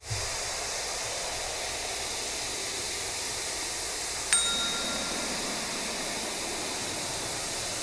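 Steady rushing hiss like white noise, with a single bright chime struck about four seconds in, its ringing dying away over about a second.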